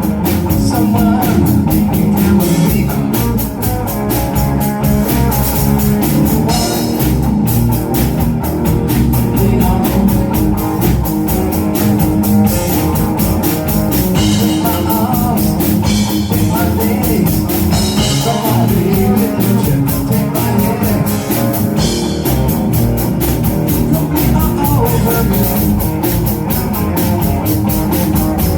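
Live rock band playing an instrumental passage: guitar over a drum kit keeping a steady beat with cymbals.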